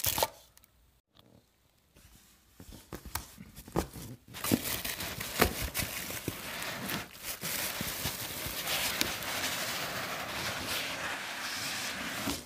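Packaging being handled: plastic bags crinkling and a foam insert scraping against a cardboard box, with a few sharp clicks early, then continuous rustling from about four and a half seconds in.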